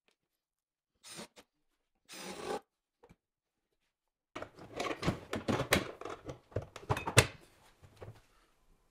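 Clicks and knocks of metal concealed cabinet hinges and wooden cabinet doors being handled and fitted: two brief scrapes early on, then a busy run of sharp clicks and knocks in the second half, the loudest knock about seven seconds in.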